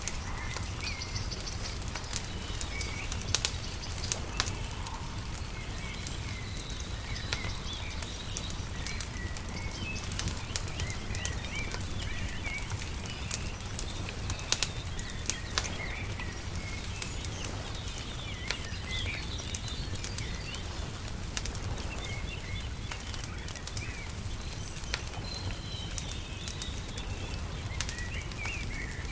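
Wood fire crackling with scattered sharp pops, over small birds chirping on and off and a steady low background rumble.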